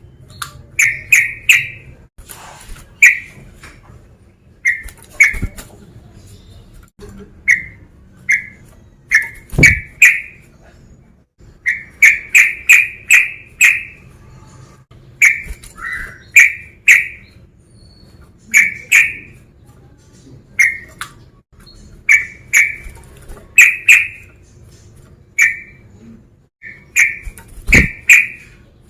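Yellow-vented bulbul (trucukan) calling: short, loud, bright notes, often in quick runs of two to five, repeated every second or two.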